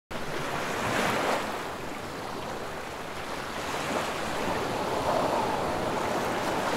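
Small lake waves washing onto a pebble beach, swelling about a second in and again around four to five seconds.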